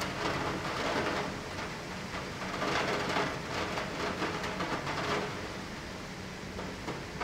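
Rain heard through a closed window, a steady hiss of falling water with fine drop ticks, heavier for the first five seconds or so and then easing.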